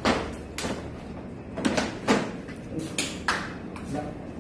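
Folded white accordion door panels being pushed and shifted on a wooden floor: an irregular series of sharp clacks and scrapes, the loudest near the start and about two seconds in.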